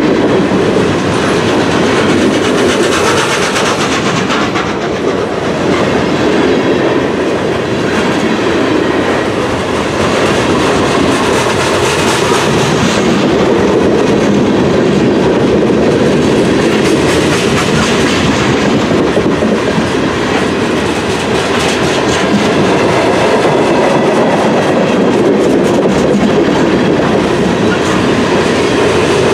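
Freight cars of a long mixed manifest train rolling past: a steady loud rumble and clatter of steel wheels on the rails, with a continual run of wheel clicks.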